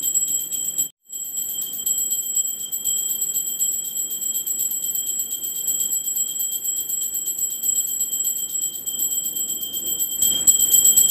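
Puja bell rung rapidly and without pause, a steady high-pitched ringing that breaks off for a moment about a second in.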